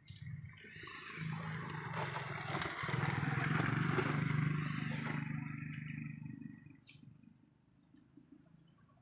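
A passing motor vehicle: a low engine hum and rushing noise build to a peak about four seconds in, then fade away.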